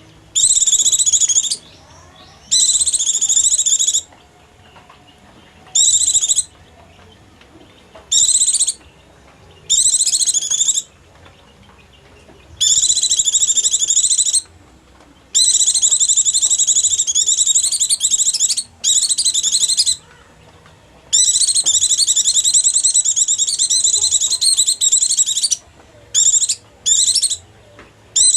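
White-eye (pleci) lure song: bursts of fast, high-pitched twittering chatter, some under a second and others several seconds long, broken by short pauses.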